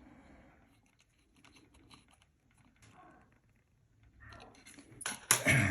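Faint small clicks and taps of hands working on the wiring in a small plastic enclosure, then a louder rubbing, scraping handling noise starting about four seconds in.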